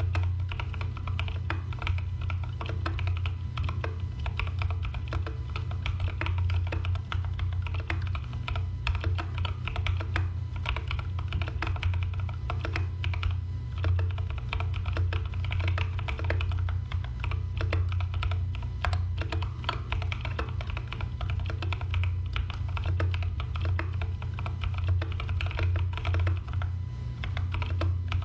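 Fast, continuous typing on a keyboard: dense, irregular clicks throughout, over a steady low hum.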